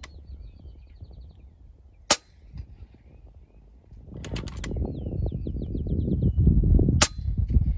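FX Impact M3 PCP air rifle shooting: a sharp crack about two seconds in, a quick run of clicks from the action being cycled about four seconds in, then a second crack near the end. Wind buffets the microphone from about the middle on.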